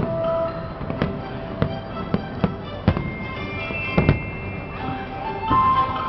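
Fireworks going off, about eight sharp bangs at uneven intervals, with background music playing throughout.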